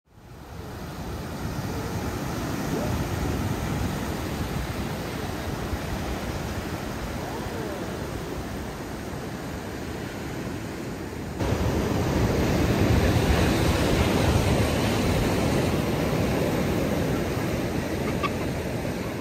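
Sea surf washing onto a beach, a steady rushing noise. It fades in at the start and turns louder a little past halfway.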